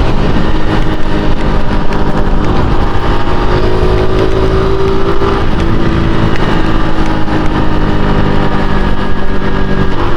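Honda Pop 110i's single-cylinder four-stroke engine running as the motorcycle is ridden, its pitch shifting a little around the middle.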